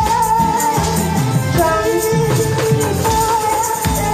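Amplified song with a wavering sustained melody line over a backing track, a handheld tambourine jingling along in time.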